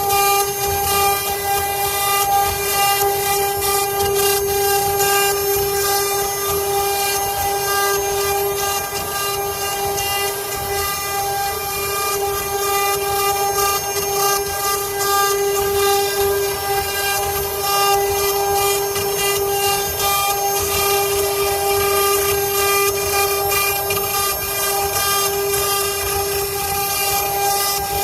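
Multi-head CNC wood-carving router running, its spindles cutting wood with a steady high-pitched whine and a rough hiss of cutting.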